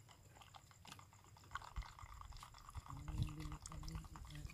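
Stirring a drink in a plastic cup: many light, quick clicks and scrapes. A low hum comes in about three seconds in.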